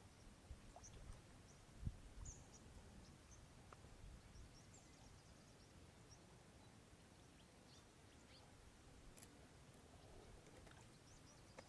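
Near silence: faint outdoor room tone with a few brief, faint high chirps and a soft low thump about two seconds in.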